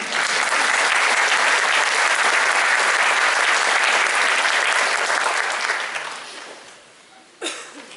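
Audience applauding, dying away after about six seconds, followed by a single sharp knock near the end.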